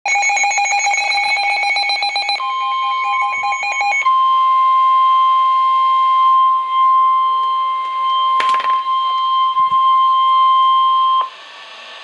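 NOAA Weather Radio warning alarm tone, a single steady tone near 1 kHz, played through Midland weather alert radios and heralding a severe thunderstorm warning. For the first few seconds the radios' own rapid electronic alarm beeping sounds over it. The tone cuts off suddenly about a second before the end.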